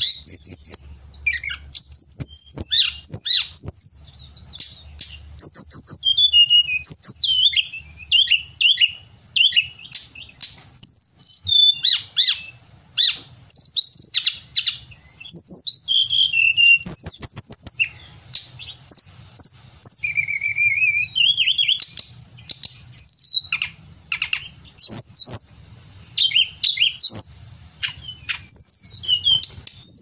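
A caged tledekan gunung singing continuously: rapid, varied high-pitched phrases of trills, chips and whistled glides, broken by short pauses.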